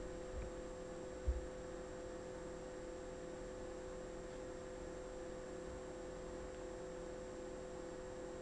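Steady low electrical hum with a faint hiss, the background noise of the recording chain, with one soft low thump about a second in.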